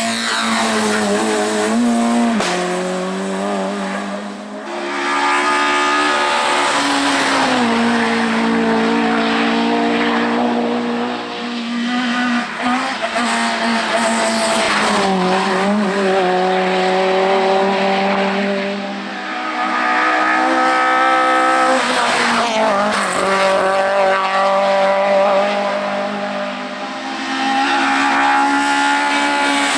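Hill-climb race car engines at full throttle, the pitch climbing and then stepping down over and over with gear changes and lifts off the throttle through the bends.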